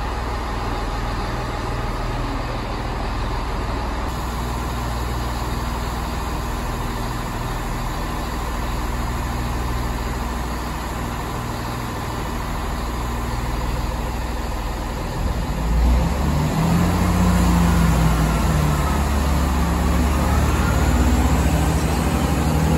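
Chiltern Railways Class 165 diesel multiple unit standing at the platform, its underfloor diesel engines idling with a steady low drone. About 15 seconds in the engine sound grows louder and heavier, and near the end a whine rises and falls.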